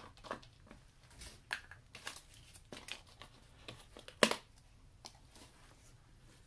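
Plastic motor-oil bottle being opened by hand: the cap unscrewed and the foil seal torn off the neck, a run of small crackles and clicks with one sharp snap about four seconds in.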